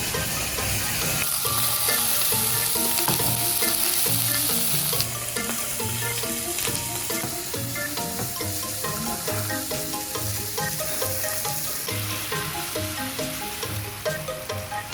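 Meat sizzling as it cooks, a steady hiss that is loudest in the first few seconds, under background music with a regular beat.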